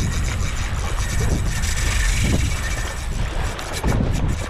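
Strong wind buffeting the microphone over waves sloshing against the kayak, with a few short sharp sounds near the end.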